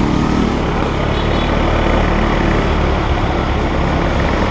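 A small motorbike's engine running steadily while under way, mixed with rushing wind and road noise.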